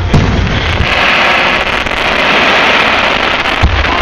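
Fireworks going off: a boom just after the start, then about three seconds of dense crackling from many tiny pops, then another boom near the end.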